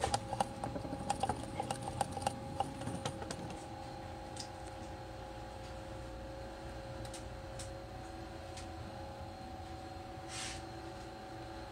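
Rapid light clicking and tapping of small hard objects on a workbench for the first three seconds or so, then a few isolated clicks, over a steady two-tone machine hum. There is a short hiss about ten seconds in.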